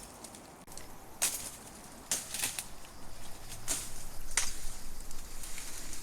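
Footsteps crunching on dry, gravelly ground, with a few uneven crackling steps over a rising rustle of movement.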